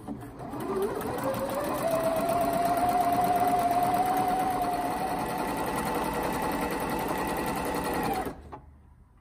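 Janome 1030MX computerized sewing machine stitching a decorative pattern through denim. The motor winds up over the first two seconds, runs at an even speed, and stops about a second before the end.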